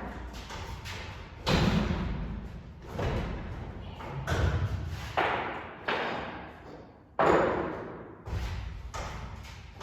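A series of heavy thumps and knocks, about seven, at uneven intervals, each dying away over about a second.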